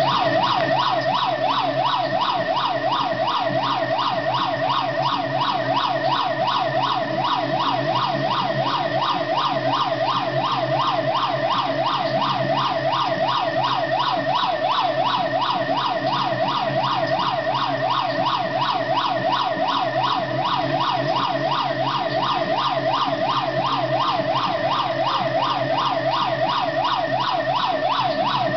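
Police siren in a fast yelp, its pitch sweeping up and down several times a second without a break.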